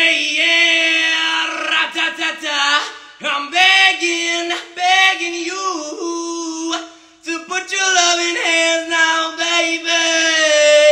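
A man singing, holding long, steady notes with short breaks between phrases.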